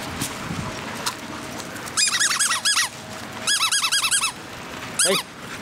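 Squeaky rubber toy ball being chomped in a puppy's mouth: rapid high-pitched squeaks in three bursts, about two seconds in, at three and a half seconds, and a short one near the end.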